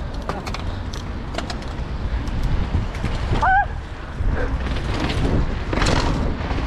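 Mountain bikes being ridden, with a steady rumble of wind and rolling over the microphone and rattling, clicking parts. A brief rising-and-falling tone comes about three and a half seconds in.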